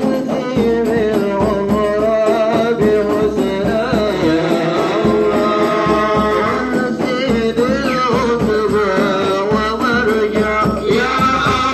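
A man sings an Arabic devotional sholawat through a microphone and loudspeaker, his melody held and bending in long phrases, over a steady beat of hadrah frame drums (rebana).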